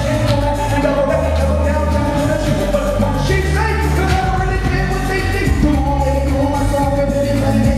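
Live pop music with a singing voice holding long notes over a bass line that moves to a new note about every second.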